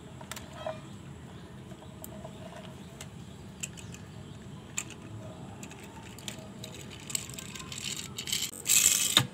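Light plastic clicks and taps as die-cast toy cars and the plastic ramp of a toy car-carrier truck are handled. Near the end comes a louder gritty rasp of a small die-cast toy car's wheels rolled across concrete.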